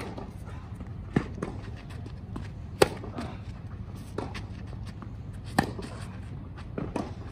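Tennis rally on a clay court: a racket strikes the ball about every second and a half, six hits back and forth, every other hit louder, with fainter ticks between them.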